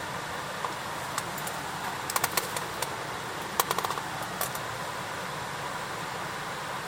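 Wood fire crackling: sharp irregular pops and snaps, some in quick clusters, over a steady hiss.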